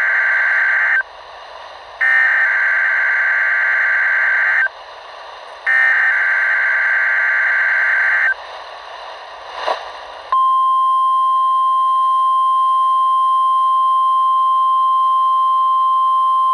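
NOAA Weather Radio weekly test signal. First come three buzzing bursts of SAME digital header data, each about two and a half seconds long with short gaps between them. About ten seconds in, the steady 1050 Hz warning alarm tone starts and holds.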